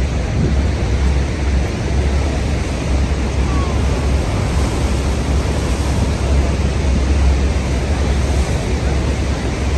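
Steady, loud rush of falling water from Niagara Falls, with wind rumbling on the microphone.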